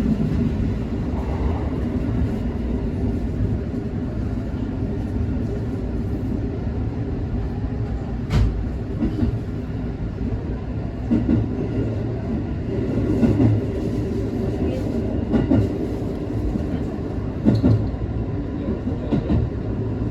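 JR 221 series electric train running along the line, heard from inside the leading car: a steady rumble of wheels on rail, with a sharp click about eight seconds in and several short knocks later on.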